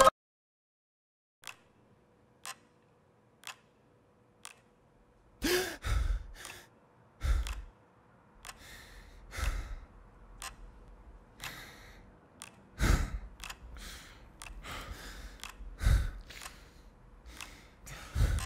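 A clock ticking about once a second, then a man stirring in bed: bedding rustling and dull thumps as he moves, with a sigh about five seconds in.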